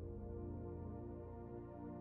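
Faint ambient background music: soft, steady held chords.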